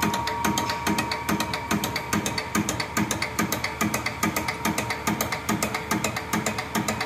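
Diesel fuel-injection pump test bench running a single-cylinder PF-type injection pump. It makes a rapid, even mechanical clicking with a steady lower beat beneath it, as the pump is driven during its fuel-delivery test.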